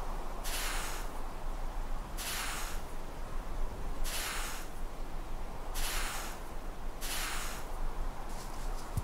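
Hands scooping and scraping damp beach sand, a short gritty hiss with each scoop, repeated about six times at a steady pace of roughly one every second and a half.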